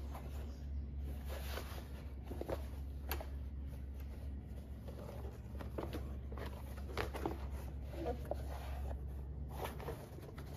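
Hermann Oak latigo leather handled, folded and rubbed by hands: irregular rustles, rubs and soft flaps of the stiff hide flexing and sliding, over a steady low hum.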